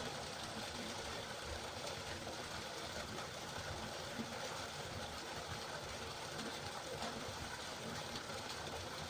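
River water flowing, a steady rushing with a restless churning low end.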